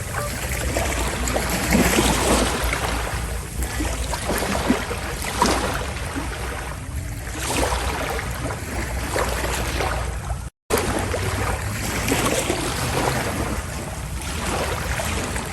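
Sea water rushing and splashing past a passenger ferry's hull, swelling and fading every couple of seconds over the steady low drone of the ship. The sound cuts out completely for an instant about ten and a half seconds in.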